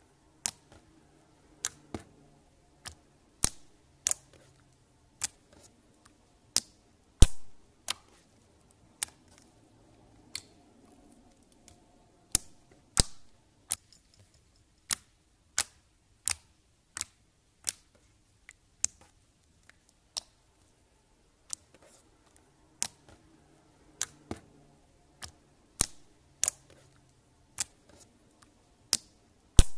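Slime being pressed and kneaded by hand, letting out sharp popping clicks from trapped air pockets, irregularly about one or two a second, with one louder pop about seven seconds in.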